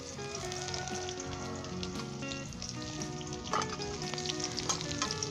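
Sliced onion sizzling and crackling steadily in hot oil in a small tarka pan, at the start of browning, with background music playing over it.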